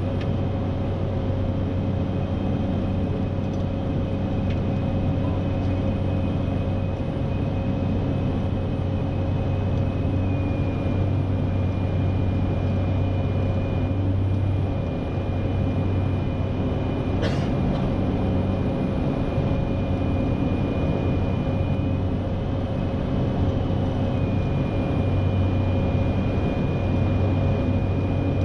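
Cessna Grand Caravan 208EX's single PT6A turboprop engine and propeller, heard inside the cockpit as a steady drone with a thin high whine during a descending approach. The whine dips slightly in pitch about a third of the way in and comes back up near the end. A single sharp click comes about two-thirds of the way through.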